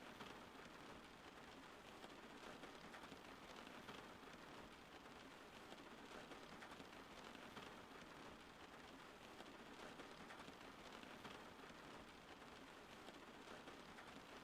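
Faint, steady rain: an even patter of raindrops with no thunder or other events.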